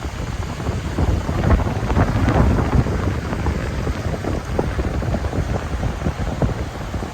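Sea surf washing and breaking, with wind buffeting the microphone in a low, irregular rumble.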